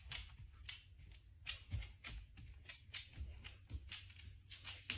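Faint, irregular short puffs and soft rustles, a Cane Corso sniffing at close range, several quick sniffs a second.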